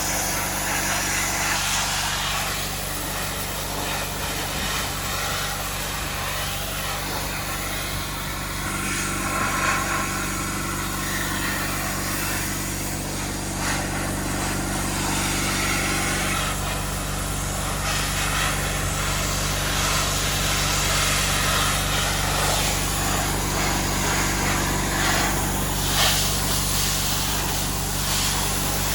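Sandblasting: a rushing hiss of the air-and-grit blast that swells and eases unevenly, over the steady hum of a running machine.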